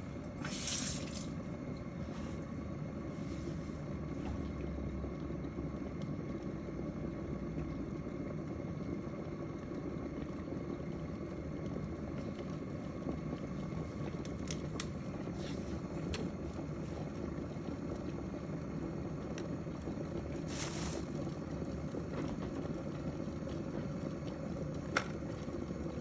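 Electric kettle heating water: a steady low rushing hiss, with two brief higher hisses and a single sharp click near the end.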